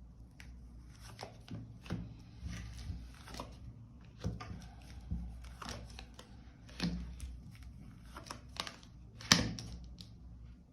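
Tarot cards being shuffled and handled: a series of irregular short swishes and snaps of card stock, the sharpest a little past nine seconds in.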